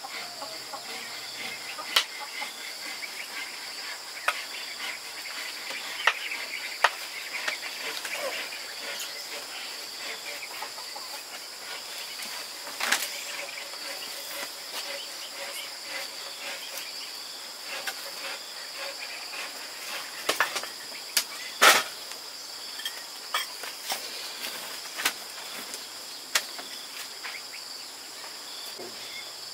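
Insects chirring steadily in a high, constant drone, with a few sharp clicks and knocks scattered through, the loudest about two-thirds of the way in.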